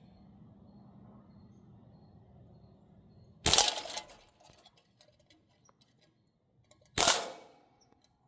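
Crosman M1 CO2-powered BB rifle firing two short full-auto bursts, a rapid string of shots each, the first about three and a half seconds in and the second about seven seconds in.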